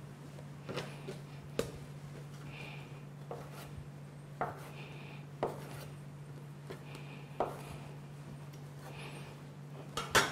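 Soft taps and rubbing of oiled bread dough being pinched off into small pieces by hand and set down on a wooden worktop, a tap every second or so, the loudest near the end, over a steady low hum.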